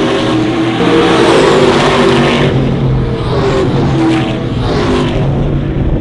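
Several Trans Am V8 race cars racing past at speed, their engine notes overlapping and sliding in pitch as they go by.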